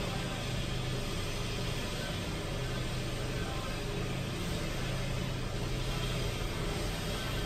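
Steady low hum and hiss with no distinct events.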